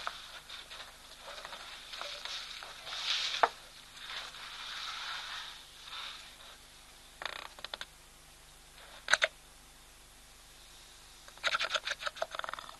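Two African elephant bulls sparring head to head: scraping and scuffing, two single sharp knocks, and a quick run of knocks near the end.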